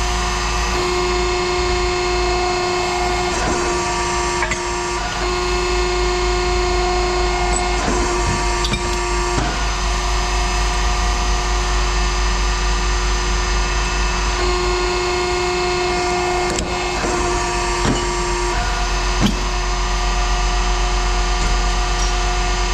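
Machinery running steadily, a constant low hum under a mid-pitched whine that cuts in and out twice, with a few scattered knocks, the sharpest near the end.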